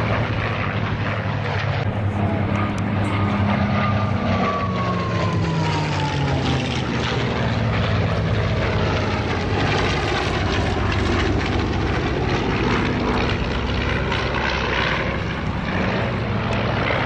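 Piston-engine WWII warbird making a low flyby, a steady propeller and engine drone whose pitch drops a few seconds in as it passes.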